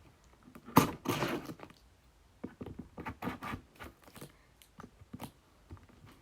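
A package being opened by hand: a sharp snap about a second in, a short rasping burst right after, then a run of irregular scrapes and taps.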